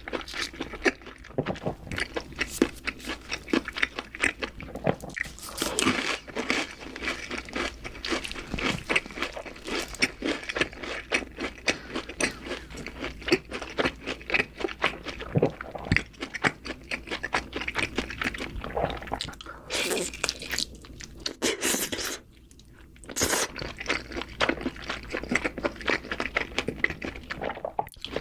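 A person chewing a mouthful of burger, a dense run of small mouth clicks, with a short pause about twenty-two seconds in.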